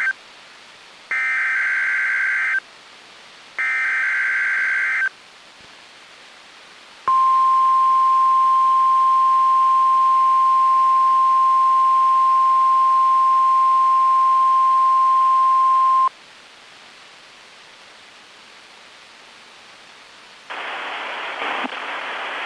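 NOAA Weather Radio weekly EAS test signal: the tail of one SAME header data burst and then two more, buzzing digital bursts about one and a half seconds long with a second of hiss between them, then after a short pause the 1050 Hz warning alarm tone, a single steady tone held for about nine seconds. Near the end a band of static hiss comes up.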